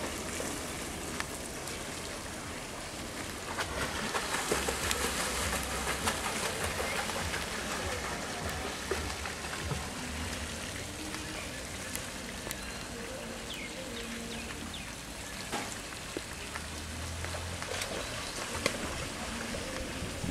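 Water splashing in a swimming pool, a steady hiss, with faint distant children's voices now and then. Low wind rumble on the microphone swells a few times.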